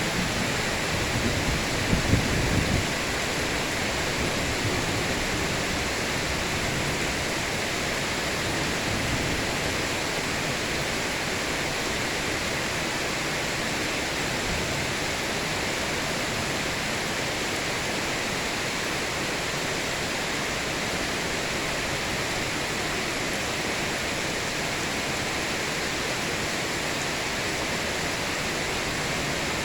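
Heavy rain falling in a steady hiss, with low rumbles of thunder in the first few seconds.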